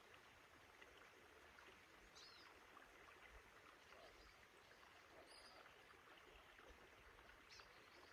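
Near silence: faint outdoor ambience with a steady hiss like distant running water. Three short, high bird chirps come about two, five and seven and a half seconds in.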